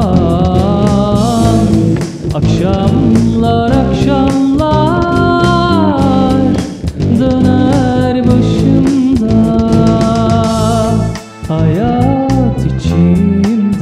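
A song: a voice singing a slow melody over bass guitar, a programmed drum-machine beat and strings.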